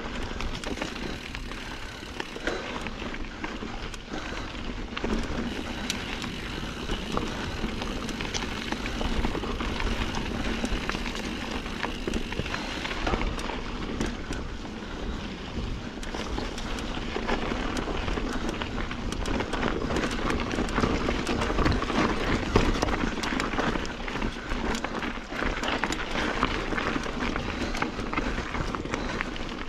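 Norco Sight A2 mountain bike ridden along a dirt singletrack: steady tyre noise on the dirt with frequent small rattles and knocks from the bike over the rough ground.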